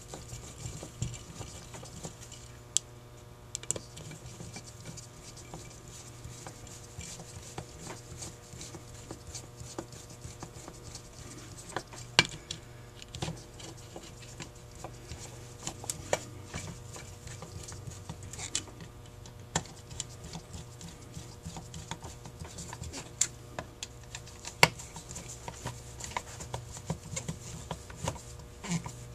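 Scattered light clicks, taps and rustles of hands handling small metal carburetor parts, gaskets and a plastic parts bag on a bench, with a few sharper clicks, over a steady low hum.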